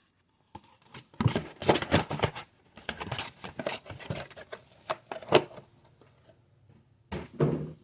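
A trading card box and its wrapping being torn open and handled, with irregular ripping and crinkling noises. The noises pause briefly about six seconds in, then come back near the end.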